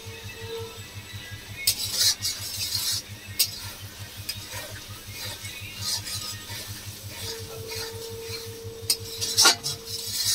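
Metal spatula scraping and stirring a thick spice paste as it fries in oil in a metal kadai, in irregular strokes with a faint sizzle. The loudest scrapes come about two seconds in and again near the end. The masala has been fried until the oil separates from it.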